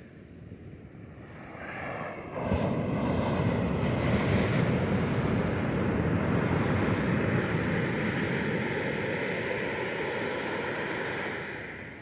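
Ocean surf breaking and washing up the sand, with wind buffeting the microphone. It is faint at first, swells up suddenly about two seconds in, stays loud and steady, and eases off near the end.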